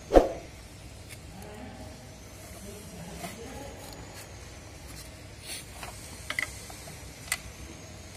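One sharp knock just after the start, then small scattered clicks and ticks from handling wires at the terminals of a motor starter's contactor in its plastic enclosure, over a faint steady background hum.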